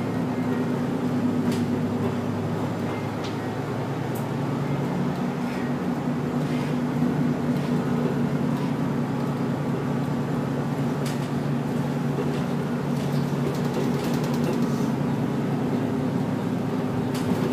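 Bus engine and cabin noise as the bus drives along: a steady low drone, with a few short sharp rattles and clicks.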